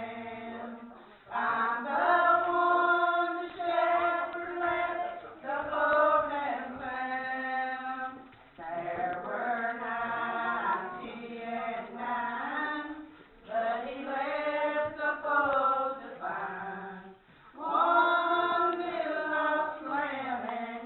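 Women's voices singing a church song together, in long held phrases with short breaks between the lines.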